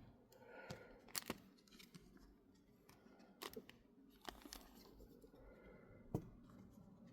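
Mostly near silence, with faint scattered taps, clicks and slides of trading cards being handled and set down; a few sharper ticks come about a second in, around three and a half seconds in and about six seconds in.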